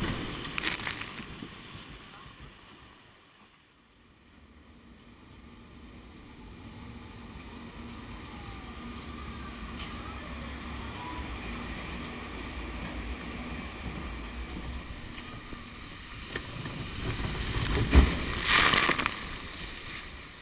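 Log flume boat riding up the lift, with a steady low running noise from the lift mechanism. Near the end the noise swells, with a sharp knock and then a brief loud burst of noise.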